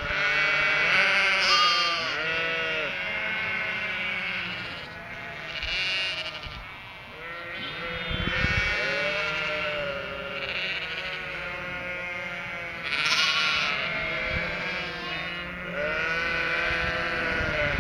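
A flock of ewes and their three-week-old lambs bleating continuously over one another, deeper baas mixed with higher lamb bleats, the calls of sheep expecting to be fed.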